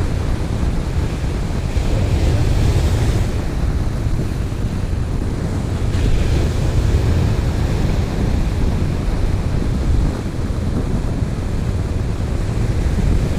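Ocean surf breaking and washing up the sand, with heavy wind buffeting on the microphone. The hiss of the wash swells about two seconds in and again about six seconds in, as waves run up the beach.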